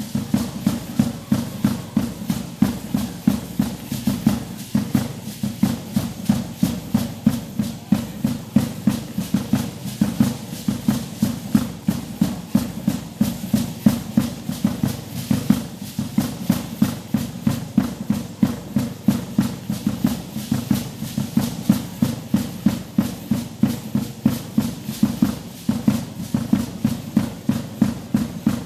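A matachines dance drum beating a fast, steady rhythm, with the dancers' gourd rattles shaking in time.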